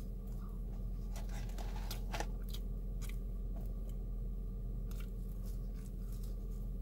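A person chewing and biting food close to the microphone, with scattered short wet clicks, over a steady low hum.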